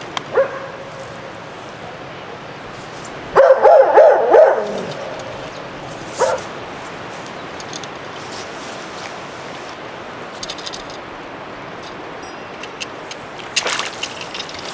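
A dog barking: a quick run of loud barks lasting about a second, a few seconds in, and a single short bark a couple of seconds later.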